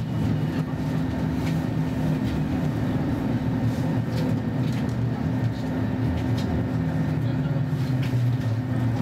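Interior sound of a Roslagsbanan X10p electric multiple unit running, a steady electric motor hum with wheel and rail noise, as the train pulls into a station.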